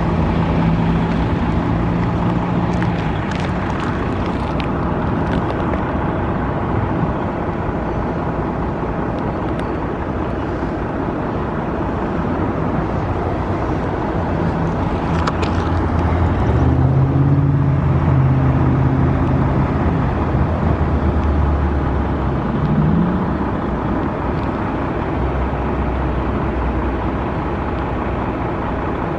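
Road traffic going by: vehicle engines and tyre noise, one engine passing louder through the middle, with a short rise in engine pitch about 22 seconds in.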